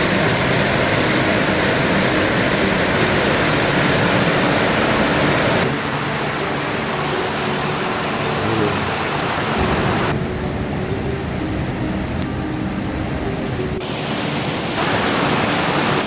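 Rain-swollen mountain stream rushing over granite ledges as a small waterfall, a steady roar of white water. It is loudest for the first six seconds and changes abruptly at cuts about six, ten and fourteen seconds in.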